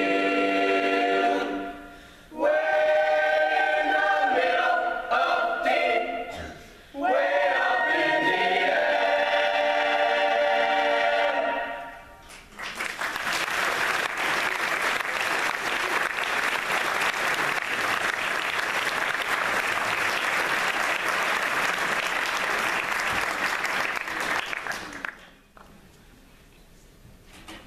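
Mixed high school choir singing a cappella: a held chord, two short phrases with brief breaks, and a final held chord that cuts off about twelve seconds in. Audience applause follows and dies away near the end.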